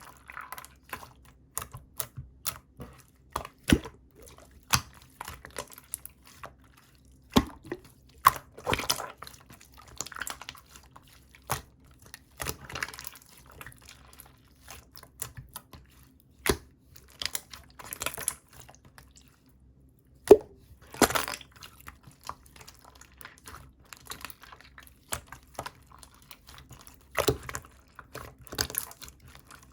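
Black, glossy, chewy slime being pressed and squeezed by hand, making irregular sharp clicking pops and short wet squishes.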